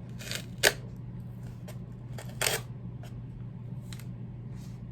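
Handling of a drone's packaging: a sharp click about a second in, a short rustle about halfway through and a few faint ticks, over a steady low hum.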